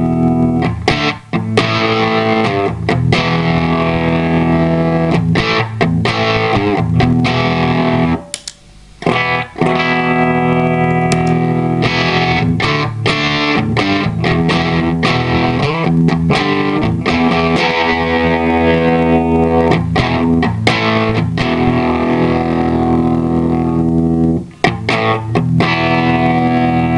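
Electric guitar playing sustained chords and riffs through an effects pedal, with a brief break about eight seconds in.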